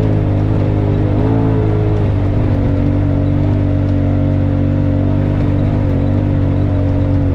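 Side-by-side UTV engine running steadily as the machine drives along a dirt trail, its pitch wavering briefly about a second in, then holding level.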